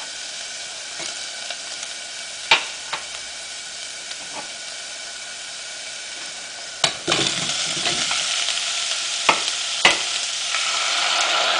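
Onion and oil sizzling in a small stainless steel pot, with a few sharp clicks of a utensil against the pot. About seven seconds in there is a sudden clatter as ingredients are dropped in, and the sizzling grows louder.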